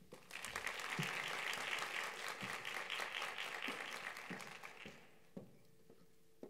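A small audience applauding, thinning out and stopping about five seconds in. A few soft thumps follow near the end.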